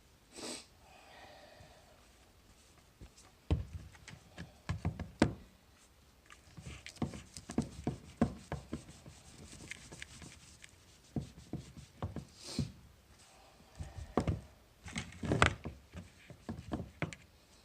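Irregular knocks and clunks of a greasy motorcycle part being handled and cleaned on a workbench, with a short hiss about half a second in and another about twelve seconds in.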